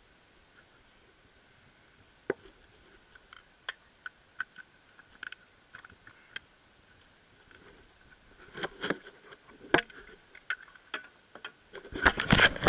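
A run of sharp clicks and knocks, sparse at first and coming thicker about eight seconds in, ending in a dense clatter near the end, over a faint steady high tone.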